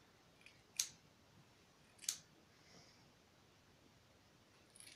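Cheap scissors snipping moustache hair along the lip line: two short snips a little over a second apart, with a few fainter ticks around them.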